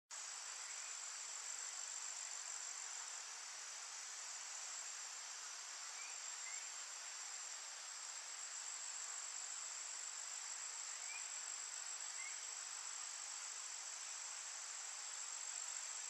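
Faint, steady high-pitched drone of crickets or other insects calling in chorus, with a few faint, short rising chirps now and then.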